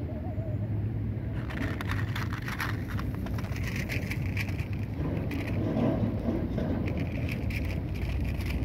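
Irregular crunching and crackling that begins about a second and a half in and comes in spells, over a steady low hum.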